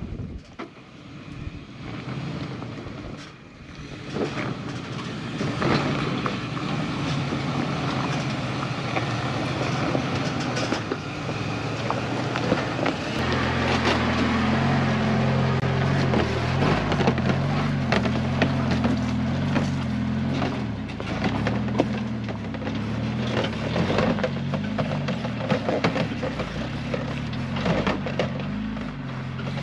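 Off-road vehicles crawling slowly over a rocky trail, with tyres crunching and knocking on rocks and gravel. About a dozen seconds in, a 1995 Jeep Wrangler's engine becomes the loudest sound as it drives close past and on up the rocks, its engine note rising and falling with the throttle.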